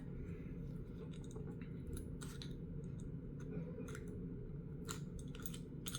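Faint, scattered clicks and light scrapes of a small metal tool working at a lead syringe shield, over a steady low hum.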